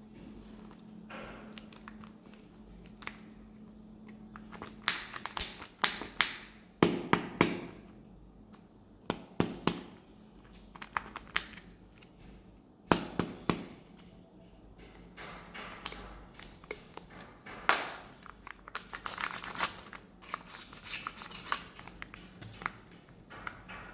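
Kinder Joy eggs being unwrapped and opened: plastic wrappers crinkling and tearing and plastic egg capsules clicking, in irregular clusters of sharp clicks with quiet gaps between.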